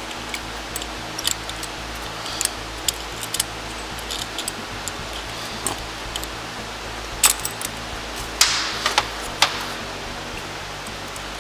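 Small metal clicks and ticks of a pick tool prying at a fuel pressure regulator on a fuel rail, working out its retaining ring and O-ring, over a steady low hum.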